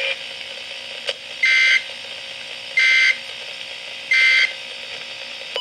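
Three short bursts of NOAA Weather Radio SAME digital data, the warbling End of Message signal that closes an emergency alert, about a second apart over radio hiss, through a Midland WR-300 weather radio's speaker. A click comes just before the first burst, and the radio cuts off at the end.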